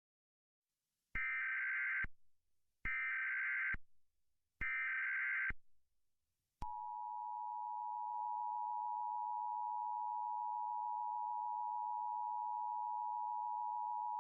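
Emergency Alert System tones: three short digital SAME header bursts, each about a second long and a second apart, announcing the start of an alert. Then, about six and a half seconds in, the steady two-tone EAS attention signal begins and holds.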